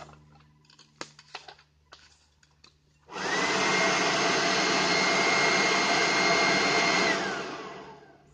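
Electric ducted fan on an exoskeleton suit spinning up with a quickly rising whine and rushing air about three seconds in. It runs steady and loud for about four seconds, then winds down with a falling whine.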